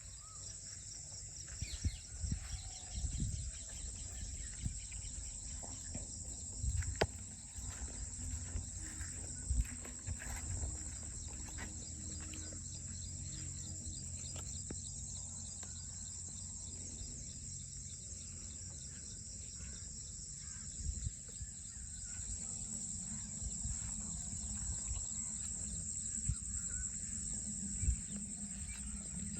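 Insects chirping in a steady high-pitched chorus, over a low rumble and a few scattered sharp knocks.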